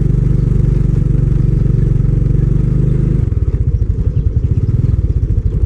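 Motorbike engine running while riding, a steady, muffled low hum that turns into an uneven throbbing about three seconds in.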